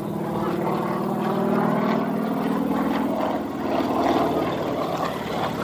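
Yak-52's nine-cylinder radial piston engine and propeller droning overhead as the plane flies, its pitch and loudness rising and falling.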